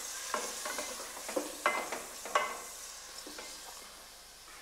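Pieces of lamb sizzling as they fry in hot oil and ghee in a copper pot, with a few sharp, ringing clinks against the pot in the first two and a half seconds. The sizzle grows fainter toward the end.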